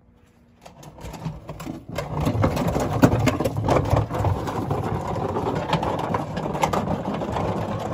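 Wheeled plastic garbage can rolled over concrete and pavement by its handle: a steady rattling rumble from the wheels and the can body, with scattered knocks, starting about a second in.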